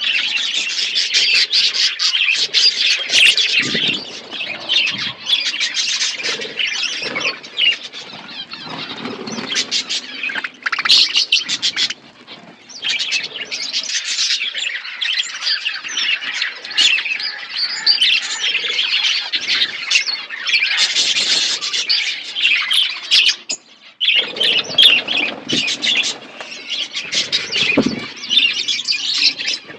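A group of budgies chirping and chattering continuously, many birds calling over each other, with brief lulls twice.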